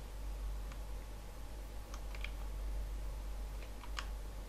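About half a dozen light, scattered clicks from someone working a computer's mouse and keys, over a steady low hum.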